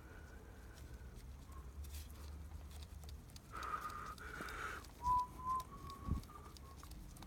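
A run of short, high whistled notes: two longer notes around the middle, then several shorter ones stepping slightly upward, with a dull knock among them near the end.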